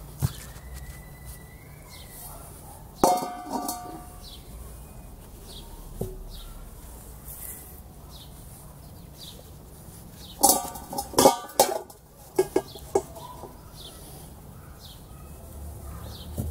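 A stainless steel bowl is set down with a ringing clang on a stone block about three seconds in. Around ten to eleven seconds in, a cast-iron pot is lowered into the bowl with a louder clatter of metal on metal. A bird chirps faintly and repeatedly throughout.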